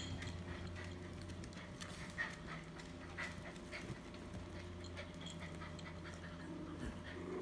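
Young puppies stirring on blankets, with a few faint short squeaks, and a dog panting, over a steady low hum.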